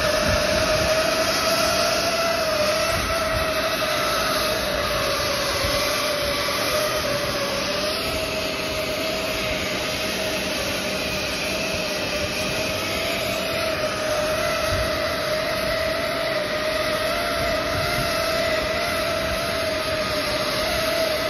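PVC duct hot-air welding machine running: a steady, slightly wavering whine over a constant hiss of air.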